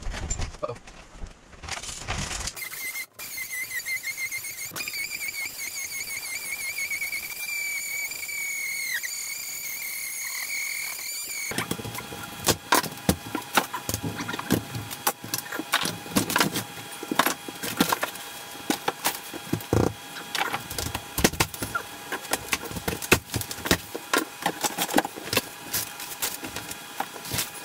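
A steady, high squeal with a slight waver lasts for several seconds. It then gives way to a fast, irregular run of knocks, cracks and clatter over a steady hum: demolition work, with old wood framing being pried and broken out of a wall.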